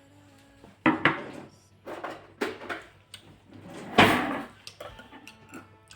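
Several knocks and clatters of objects being handled on a table, most likely the milk drink's container and packaging being picked up and opened; the loudest knock comes about four seconds in.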